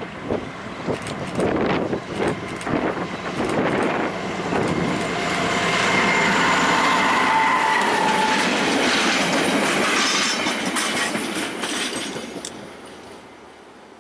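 Diesel railcar M286.0 with its coaches approaching and passing close by: engine and wheels clattering over the rail joints, with a brief wheel squeal near the middle as it goes by. It is loudest about halfway through, then fades into the distance.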